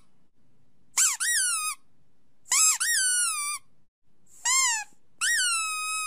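Four high-pitched whining squeaks in a row, each rising then falling in pitch. The last is drawn out and holds steady toward the end.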